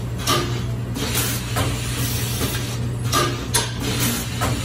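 Plastic ink dampers being pulled off a printhead and handled: a series of short clicks and rustles over a steady low hum.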